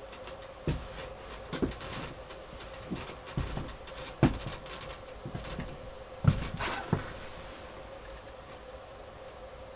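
Whitetail deer coughing: a string of about ten short, sharp coughs at uneven intervals, stopping a few seconds before the end.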